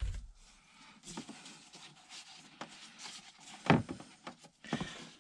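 Hands working loose plastic airbox parts in a car's engine bay: faint rubbing and scraping, a low thud right at the start and a sharper knock a little before four seconds in.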